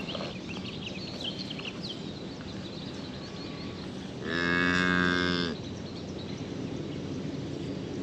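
A single moo from cattle, a little over a second long and steady in pitch, about four seconds in.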